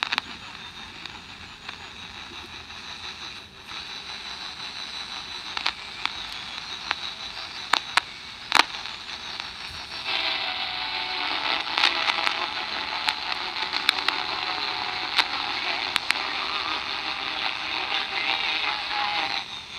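Sokol 310 Soviet AM pocket transistor radio hissing with static from its small speaker, broken by scattered clicks and crackles. About ten seconds in the hiss swells louder, as if a station were tuning in, yet turning the tuning dial has no effect: a sign of a tuning-circuit fault, which the repairer wonders may be a dirty band switch not connecting the tuning capacitor.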